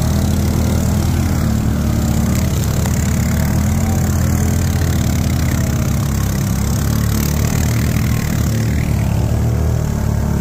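Can-Am ATV engine running steadily under the load of towing a stuck Honda ATV.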